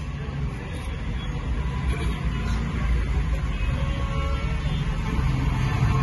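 Steady low rumble of a Hyundai Creta idling, heard from inside the cabin.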